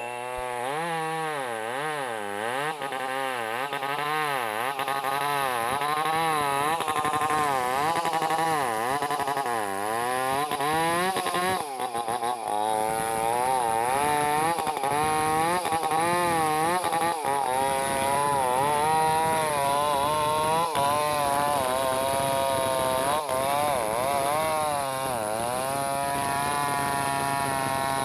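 Two-stroke chainsaw running under load as it cuts along a felled log, its engine pitch rising and falling again and again as the throttle is worked.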